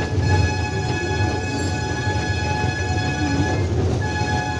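A train running: a steady low rumble with a steady high whine above it, which breaks briefly a little after three and a half seconds in.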